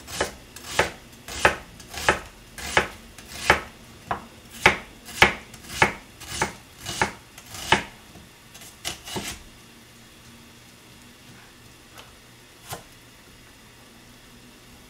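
A kitchen knife slicing an onion into rings on a plastic cutting board: a dozen steady strokes at about one and a half a second, then a quick few just after, and two single knocks later on.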